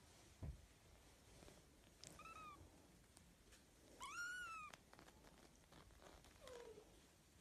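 Small hairless kitten giving three short, thin meows: a faint one about two seconds in, a louder arching one about four seconds in, and a lower falling one near the end. A soft bump comes just before the first meow.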